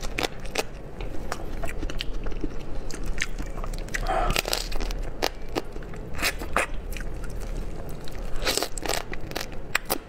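Close-miked biting and chewing on a piece of crab in spicy sauce: irregular crunches and clicks from the shell, louder around four seconds in and again near the end.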